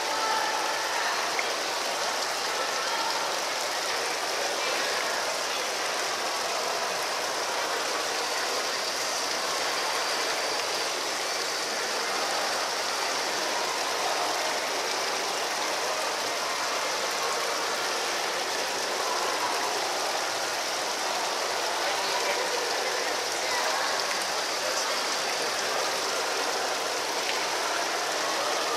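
Water from a small rock-wall waterfall fountain pouring and splashing steadily into its pool, with a constant rushing hiss.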